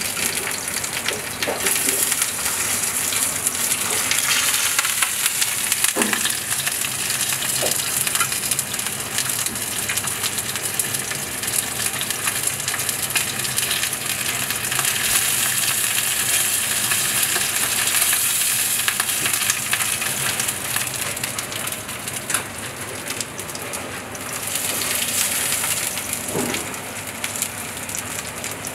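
Pigeon breast sizzling and crackling steadily in hot fat in a frying pan on a gas burner, with a few light clinks of a basting spoon against the pan.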